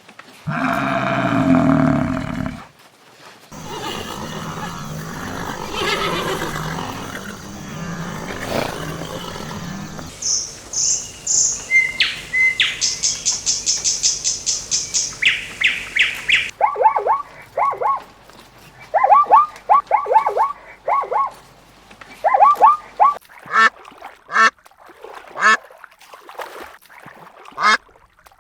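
Different animal and bird calls one after another: a short call near the start, a noisy stretch, then rapid high-pitched bird chirping, then runs of short calls repeated in quick series to the end.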